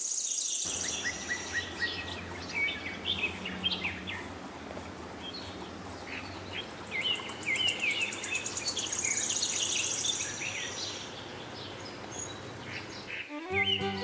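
Birds chirping in short scattered calls over a steady background hiss, with a high steady buzz like an insect at the start and again about two-thirds of the way through.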